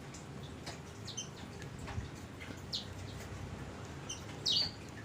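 A bird giving a few short, high chirps, spaced out over several seconds, the loudest about four and a half seconds in.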